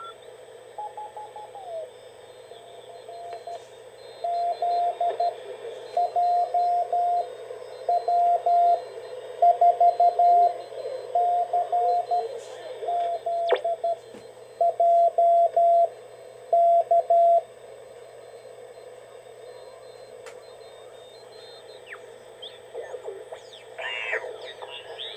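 Morse code (CW) station heard through the speaker of a Ten-Tec T-Kit 1056 direct-conversion receiver on the 40-meter band: a steady tone of about 700 Hz keyed in dots and dashes over band hiss, stopping about two-thirds of the way through. Near the end, the receiver's tuning slides through warbling signals.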